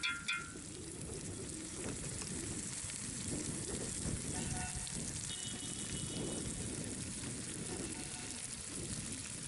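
Steady sizzling hiss of masala-coated chicken frying in a metal pot.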